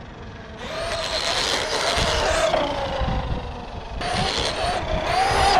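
Traxxas Maxx RC monster truck driving on the street: the electric motor whines, its pitch wavering with the throttle, over the hiss of its Sledgehammer tires on the pavement. It gets louder about a second in, eases off around the middle and swells again near the end.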